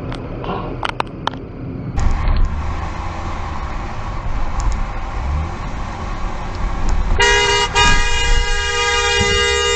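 Car horn held in one long steady blast of about two and a half seconds near the end, over the low rumble of a car driving on a city street.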